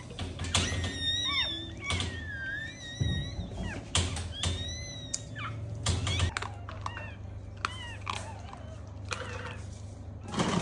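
Newborn puppy crying in high-pitched squeals and whines, several rising and falling cries in the first half and fainter ones later. Occasional knocks are heard, with a louder thump at the very end.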